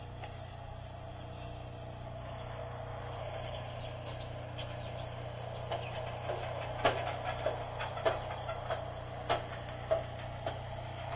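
Footsteps on outdoor concrete stairs: a string of short knocks about every half second, starting about halfway through, over a steady low hum and hiss.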